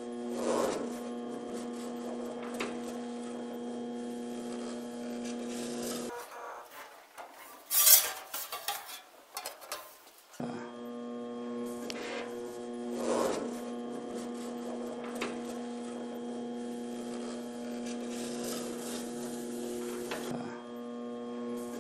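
Bead roller's motor running with a steady electric hum while a notched skateboard-wheel die rolls a contour line into a sheet of metal, with metal rubbing and scraping. The hum stops for about four seconds partway through, during which there is one sharp metallic clank, the loudest sound, before the hum starts again.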